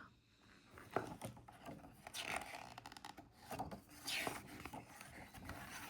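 Faint rustling and scraping of a picture-book page being turned, paper sliding against paper in a few soft strokes.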